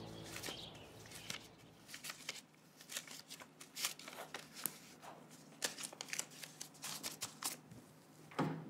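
Playing cards being shuffled and laid down on a table: a quiet string of light, irregular snaps and flicks.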